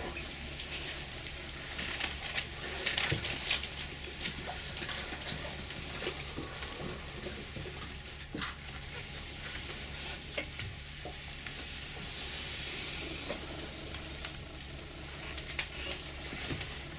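Felt-tip marker drawn across flip-chart paper: uneven scratchy strokes with small clicks and rustles, and a longer stroke about twelve seconds in.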